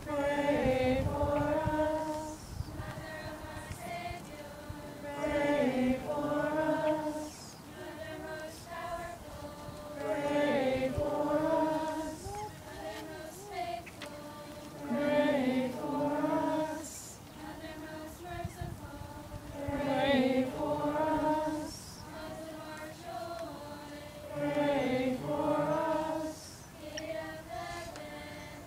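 A group of voices singing a hymn together, in sung phrases about two seconds long that come back roughly every five seconds with short quieter pauses between them.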